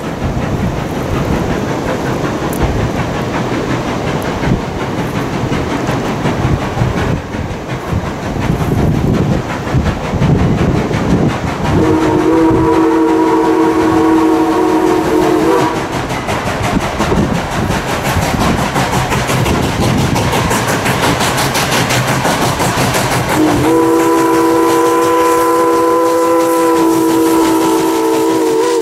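Steam locomotive working a passenger train, its exhaust and wheel clatter running throughout. It sounds two long blasts of its multi-note chime whistle: one of about four seconds near the middle, and a longer one starting about two-thirds of the way in as the train rolls past close by.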